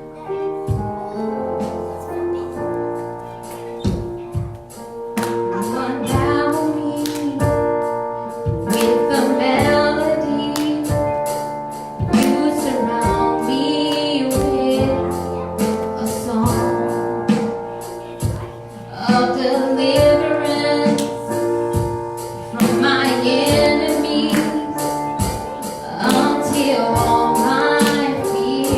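Worship music: keyboard chords, joined about five seconds in by a woman singing.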